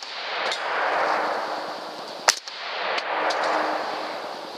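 Two rifle shots fired at close succession: the rolling echo of a shot fired just before, then a second sharp shot about two seconds in, each followed about half a second later by a fainter crack and a long echo rolling back through the woods.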